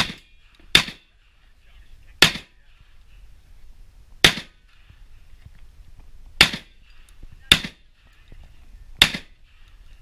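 Shotgun firing seven single shots at an uneven pace, one to two seconds apart, each a sharp loud crack.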